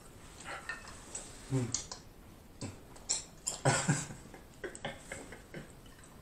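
Close-up mouth sounds of a man eating and drinking: chewing, swallowing and sipping through a straw, with scattered small clicks. There are two short hums, the louder one about four seconds in.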